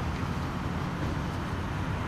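Steady low rumble of road traffic at a distance, with no vehicle passing close.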